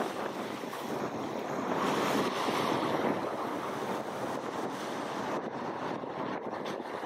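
Rough sea with waves breaking and wind buffeting the microphone: a continuous rushing that swells about two to three seconds in.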